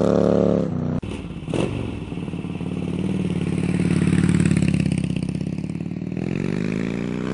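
2010 Harley-Davidson Dyna Super Glide's Twin Cam 96 V-twin, through Rush slip-on mufflers, running at steady revs as the bike rides off, then dropping away under a second in. After an abrupt cut with a knock, a motorcycle engine runs again at a lower, steady note, its revs rising near the end.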